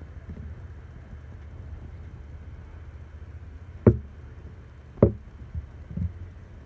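Two sharp knocks about a second apart, then a couple of softer thuds, as a camera lens is handled and set against a wooden table, over a steady low hum.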